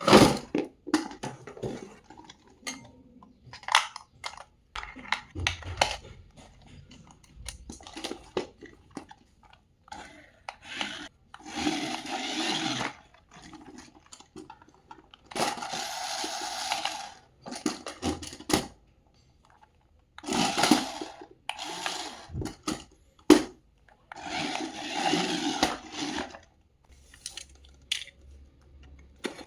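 Toy packaging being unboxed and handled: scattered clicks and knocks, with several rasping scrapes of a second or two each, like cardboard or plastic being slid or torn.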